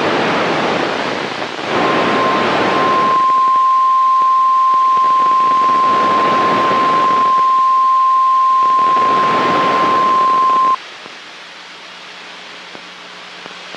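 Weather-radio warning alert tone: a single steady high tone near 1 kHz, held for about nine seconds before it cuts off suddenly, heralding a High Wind Warning. It plays over a loud radio hiss that swells and fades three times, and afterwards only a quieter hiss and faint hum remain.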